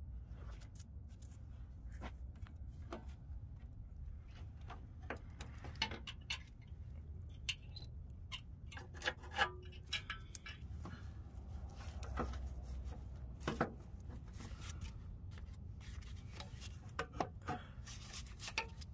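Scattered clicks and light metal knocks as a new replacement starter motor is worked by hand into its mounting opening, over a steady low rumble.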